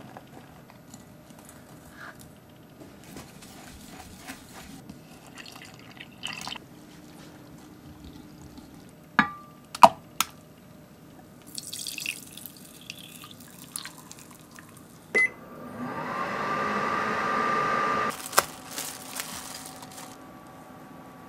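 Kitchen sounds of making chocolate custard in a glass bowl: powder tipped in, a whisk stirring, sharp clinks against the glass, and egg yolk poured in. About two-thirds of the way through, a short beep is followed by a louder, steady hum of a few seconds, which ends with a click.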